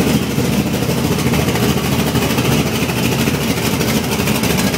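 Small-block Chevrolet V8 of over 400 cubic inches idling loudly and steadily in a short-bed Chevy truck, warming up.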